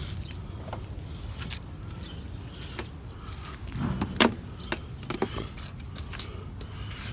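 Hand-washing a wet car body: rubbing and handling knocks against the van's panels, with a sharp click about four seconds in, over a steady low rumble.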